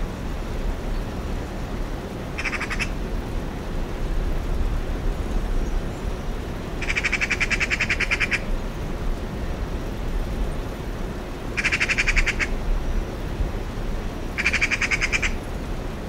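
Eurasian magpie chattering: four bursts of rapid, harsh rattling notes, the second the longest, over a steady low background rumble.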